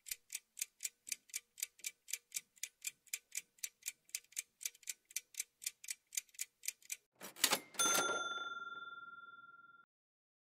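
Quiz countdown-clock sound effect: steady ticking at about four ticks a second for about seven seconds. Then comes a short hit and a bell-like chime that rings out and fades over about two seconds, signalling that time is up.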